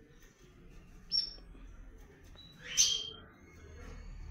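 Caged male ultramarine grosbeak (azulão) giving two short, sharp calls: a brief high one about a second in and a louder one near three seconds in.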